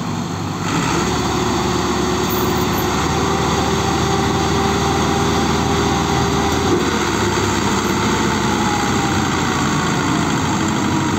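Two tractors' diesel engines running hard under load, a Massey Ferguson 385 and a second tractor moving a heavily laden straw trolley. The engine sound steps up about a second in and then holds steady, with a steady whine over it for several seconds.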